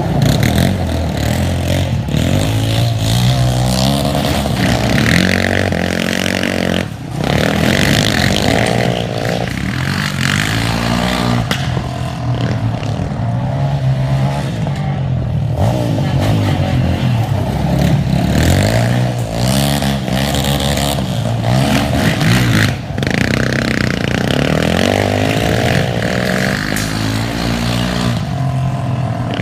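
Sport ATVs' single-cylinder four-stroke engines revving hard under acceleration. The pitch climbs again and again and drops back as they shift gears, with the engine note briefly cutting out twice.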